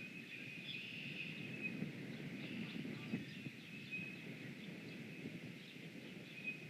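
Faint outdoor ambience: distant small birds chirping over a steady high background band and a low rumble.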